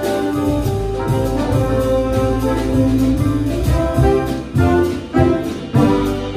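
Live jazz ensemble playing: saxophone and trombone hold melody lines over piano, upright bass and drums. Three sharp accented band hits come in the last two seconds.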